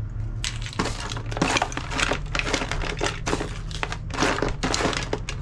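Packaging crinkling and rustling as it is handled: a dense, irregular run of short crackles starting about half a second in.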